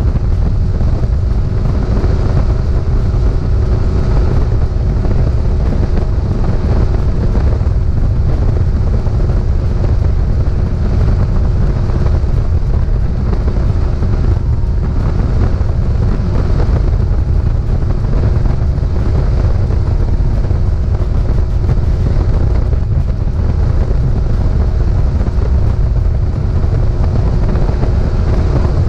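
Bass boat's outboard motor running steadily while under way, a loud even drone with a heavy low rumble of wind and water underneath.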